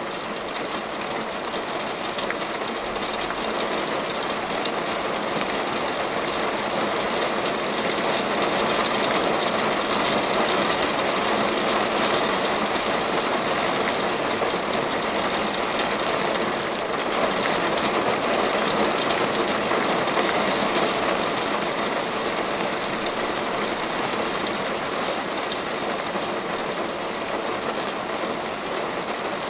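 Steady rain falling, an even, dense hiss of drops with no rhythm, slightly louder through the middle.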